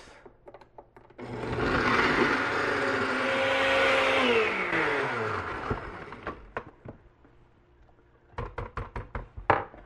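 Countertop blender motor running for about three seconds as it purées the mole sauce ingredients, then spinning down with a falling pitch once the button is released. Near the end, a series of quick taps and scrapes as a spatula works the thick mixture inside the blender jar.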